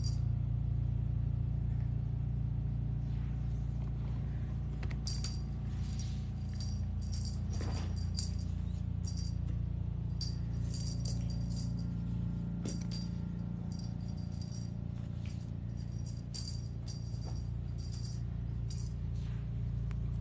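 Steady soft background music with irregular short bursts of small metallic jingling, like a bell on a cat toy being batted about.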